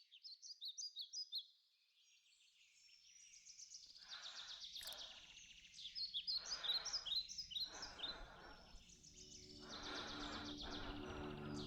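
Songbirds chirping and singing in quick repeated phrases, with several soft swells of rushing noise in between. Low, sustained music tones come in near the end.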